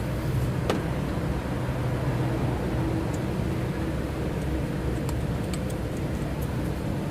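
An engine running steadily at idle, with a few light sharp clicks of tools or parts on top.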